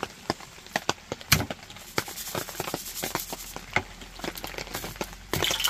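Salt grinder being worked over raw catfish fillets: a run of irregular dry clicks and ticks, one louder click about a second and a half in.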